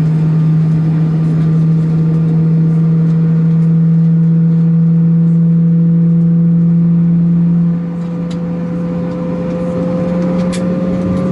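Steady drone of an Embraer E190 jet airliner heard inside the cabin on the ground, a strong low hum with a higher tone that rises slowly in pitch. About eight seconds in the drone drops a little in level and the hum shifts slightly higher; a few faint clicks follow near the end.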